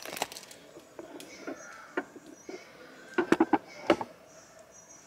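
Scattered light clicks and knocks from things being handled, with a quick run of sharp clicks a little after three seconds in and a single sharp one just before four.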